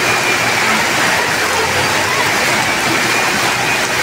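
Heavy rain and rushing floodwater on a street make a steady, even noise of water.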